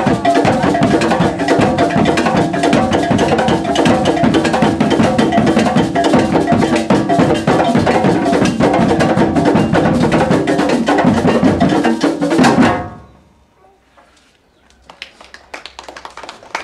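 Ensemble of Ghanaian hand drums and tall barrel drums playing a fast, dense dance rhythm, cutting off suddenly about 13 seconds in and leaving only faint scattered sounds.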